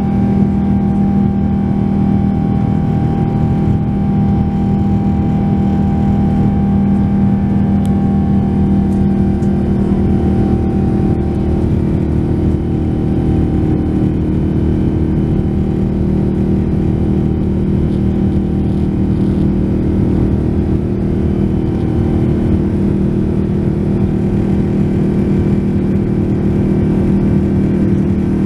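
Rolls-Royce Trent 1000 turbofan engines of a Boeing 787-9 Dreamliner heard from inside the cabin during the climb after takeoff: a loud, steady drone with several steady tones in it. One of the higher tones fades out about ten seconds in.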